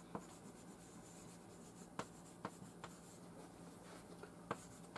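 Chalk writing on a blackboard: faint scratching of the chalk, with a few sharp taps as letters are struck onto the board, the clearest about two seconds in and again near the end.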